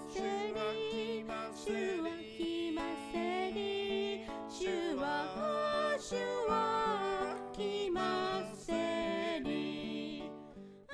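Background music with a melody, fading out near the end.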